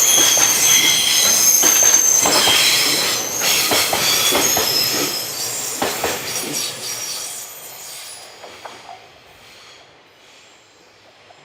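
Freight train wagons rolling past, wheels squealing against the rails in high steady tones for the first few seconds, with a repeated clatter of wheels over rail joints. The sound fades away over the last few seconds as the train moves off.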